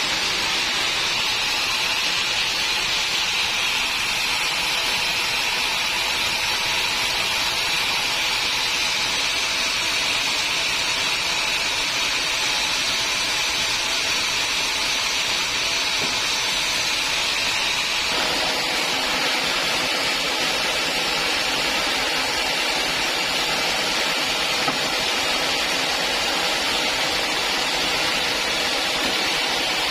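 Sawmill machinery running with a steady hissing noise, changing abruptly in character about eighteen seconds in.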